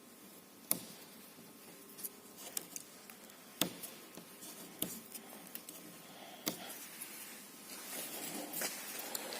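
Light hand-work on a car door's plastic wind deflector and its old double-sided tape: scattered sharp clicks and faint scraping, busier near the end.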